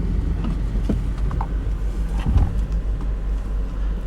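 Subaru car running steadily as it drives up a snowy driveway, with a low engine and drivetrain rumble and a few faint knocks.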